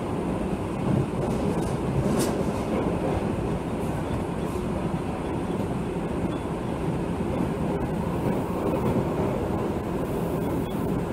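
Osaka Metro 66 series electric commuter train running, heard from inside the car: a steady rumble of wheels on rail and car body, with no distinct rhythm or squeal standing out, as it runs into a station.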